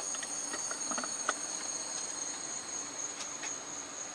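Crickets chirping in a steady high-pitched trill, with a few light clicks and taps of handling.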